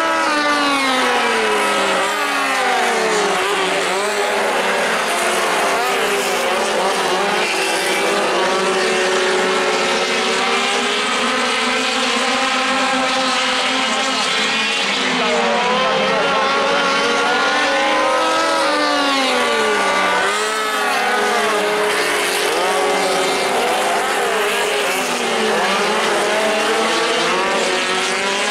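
Several midget race car engines running together at racing speed, each one's pitch repeatedly rising and falling as the cars rev and pass by, with the notes overlapping.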